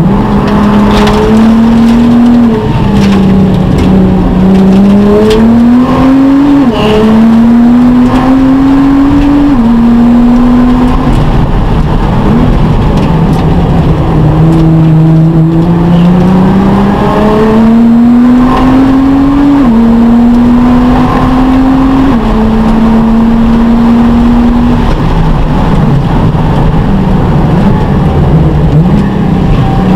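Nissan GT-R R35's twin-turbocharged V6 at racing speed, heard from inside the cabin. Its note climbs through the revs and drops suddenly at each upshift, twice early on and again in the middle, and falls away in longer slides when the car slows for corners.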